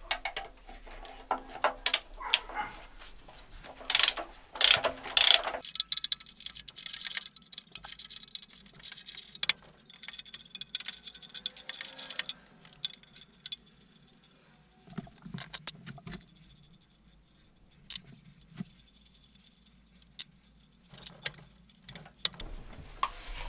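Ratchet wrench with a long extension working a rusty bolt under a van: runs of ratchet clicks and clinks of metal tools. The clicking is densest and loudest about four to five seconds in, then thins to scattered clicks.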